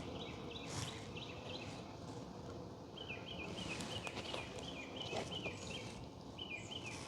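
A songbird singing quick runs of short, falling chirps in repeated phrases, over the faint steady hum of honeybees at an open hive. A few light knocks come from handling frames.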